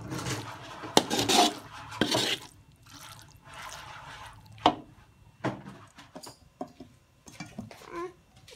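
Metal spatula scraping and stirring diced potato-and-carrot filling around a wok in repeated strokes, as the filling is stir-fried until it is dry, with a couple of sharp clinks about halfway through.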